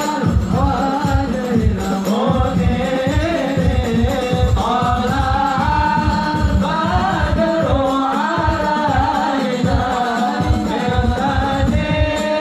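A group of men singing a sholawat together, with a steady beat of rebana frame drums, about four strokes a second, under the voices.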